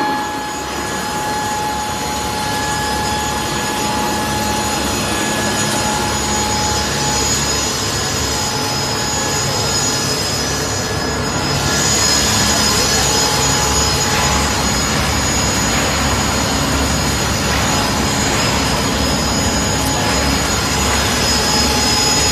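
CW600 stainless-steel dry food pulverizer running at high speed: a steady mechanical noise with a high whine. About halfway through it grows louder and brighter.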